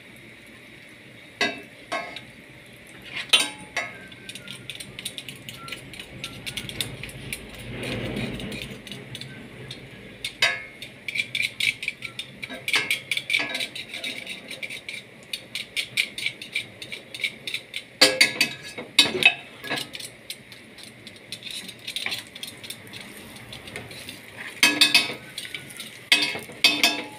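Metal garlic press crushing garlic cloves over a skillet: the hinged press clicking and rattling as it is squeezed, and tapping and scraping against the pan as the garlic is knocked off, in runs of quick clicks.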